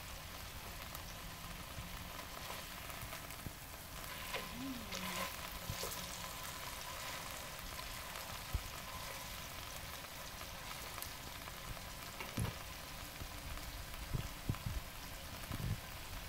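Boneless chicken leg sizzling steadily as it pan-fries in teriyaki sauce in a frying pan. A few knocks of the metal spatula against the pan come in the last few seconds.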